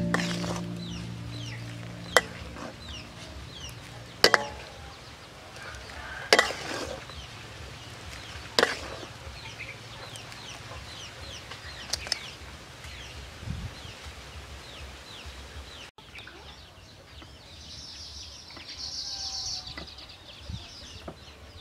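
Chickens clucking, with sharp knocks about two seconds apart in the first half.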